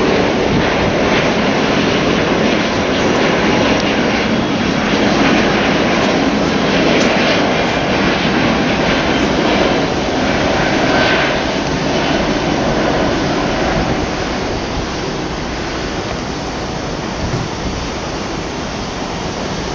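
Four-engined Singapore Airlines Airbus A380 climbing away after takeoff, its Rolls-Royce Trent 900 jet engines making a loud, steady noise that slowly fades over the last several seconds as the aircraft moves off.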